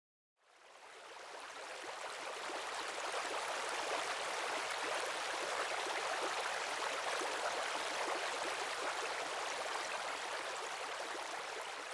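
Steady rush of running water, like a forest stream, fading in over the first two to three seconds.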